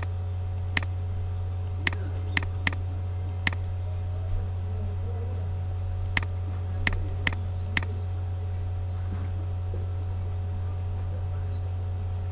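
Computer mouse clicks: about nine sharp single clicks, irregularly spaced, in the first eight seconds, over a steady low hum.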